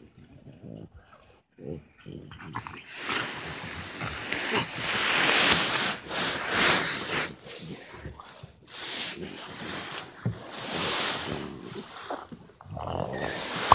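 A French bulldog and a Peke-a-Pom play-fighting, making dog noises in uneven spells after a quiet first two seconds, with louder peaks in the middle and near the end.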